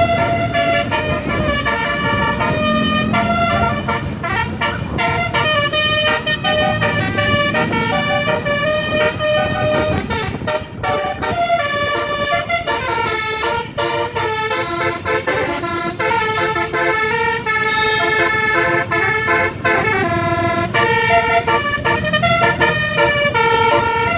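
Bus 'telolet' horn, a set of multi-tone air horns, playing a quick melody of short tones that change pitch every fraction of a second, with a low rumble underneath.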